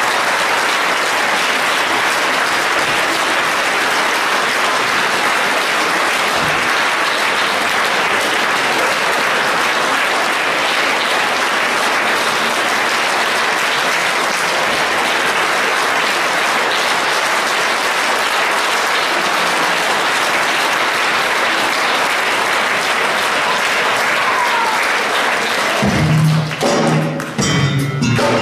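Audience applauding steadily in a concert hall. About two seconds before the end, the wind orchestra starts playing, with low brass tones and sharp percussion strokes.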